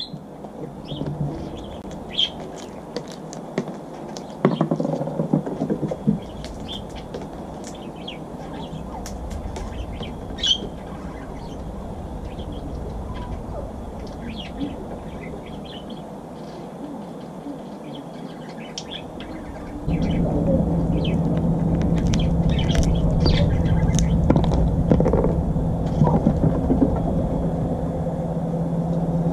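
Small birds chirping in short, scattered notes over a steady outdoor background, with a cluster of sharp clicks and knocks about five seconds in. About two-thirds of the way through, a steady low mechanical hum starts and becomes the loudest sound.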